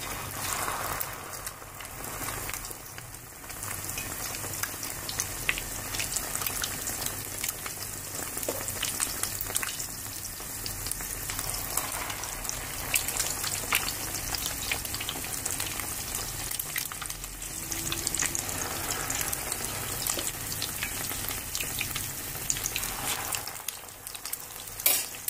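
Slices of bread soaked in egg and milk sizzling and crackling in hot oil in a frying pan, a steady sputter with many small pops.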